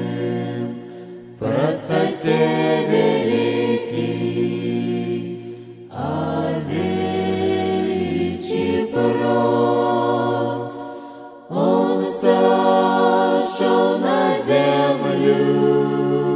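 Choir singing a Christian song in long held chords without clear words, in phrases of about four to five seconds with short breaks between them.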